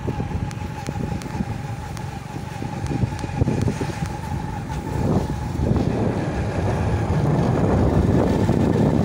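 Wind buffeting the phone's microphone as a dense, uneven low rumble, with a faint steady whine through the first half.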